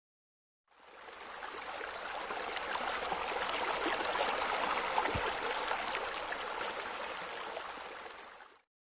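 Steady running, trickling water that fades in about a second in and fades out near the end.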